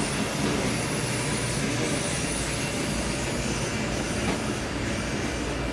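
Steady background rumble and hiss of a covered market alley, with no distinct events.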